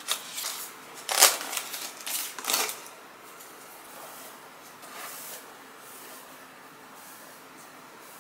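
Cardboard packaging crackling and rustling as a plastic paddle hairbrush is worked free of its card backing, in several loud crinkles over the first three seconds. After that come only faint, soft strokes of the brush through long hair.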